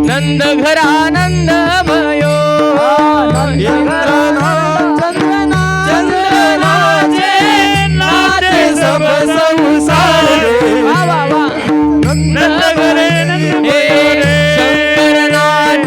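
Marathi devotional kirtan music: a melody line with bending, wavering pitch over a steady held drone and regular low drum strokes.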